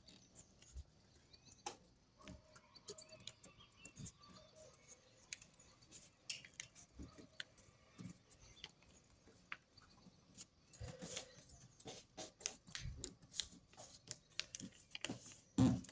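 Sheet of paper being folded and creased by hand on a wooden tabletop: faint, scattered crinkles and small taps, with a louder rustle near the end.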